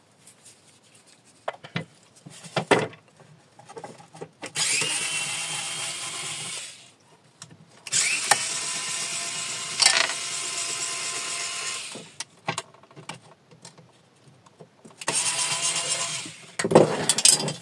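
Small cordless electric screwdriver running in three bursts, the longest about four seconds, as it works the screws out of an electricity meter's terminal block. Light clicks and knocks of metal parts come between the bursts.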